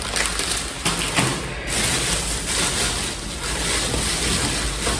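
Rustling and handling noise, as of items in plastic packaging being moved about, with a few light knocks.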